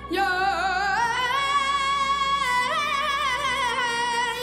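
Mugham singing: a high voice rises in pitch about a second in, then wavers through quick ornamented turns over a steady held note.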